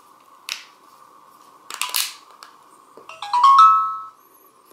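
Vantrue OnDash R2 dash cam's plastic housing clicking twice as it is pressed and snapped together. About three seconds in, the camera plays its power-on chime, a quick run of rising beeps, showing it now starts up on its replacement battery.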